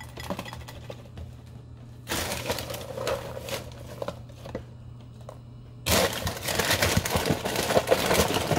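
Small multigrain O's cereal poured from a cardboard box into a glass bowl: a stream of many small clicks as the pieces hit the glass and each other. There are two pours, a short one about two seconds in and a longer one from about six seconds in.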